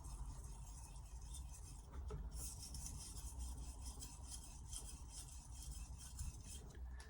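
Carbon-steel kitchen knife being stroked back and forth on a splash-and-go whetstone, a rhythmic scraping of steel on stone. The strokes are fainter at first, grow louder about two seconds in, and stop shortly before the end.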